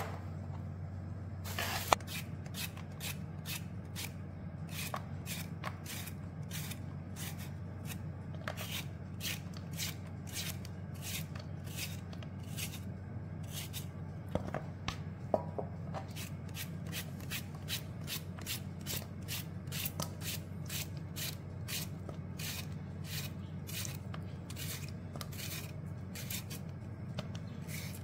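Knife slicing green tomatoes held in the hand, a short crisp cut about twice a second, over a steady low hum. A sharp knock of the knife on the cutting board comes at the very start.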